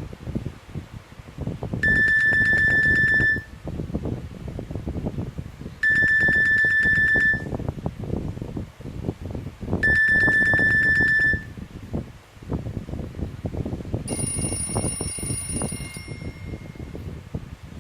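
A Nokia E51 mobile phone's loudspeaker plays an electronic alert tone: a single high beep held about a second and a half, repeated three times at about four-second intervals. A different, higher tone follows near the end.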